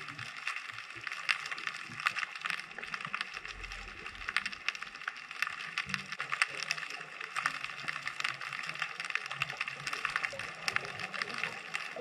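Underwater crackling: a dense, steady field of tiny clicks and pops, with a brief low rumble about three and a half seconds in.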